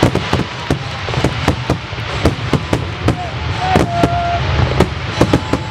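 Fireworks display: a rapid, uneven string of sharp bangs, several a second, from shells and crackers bursting.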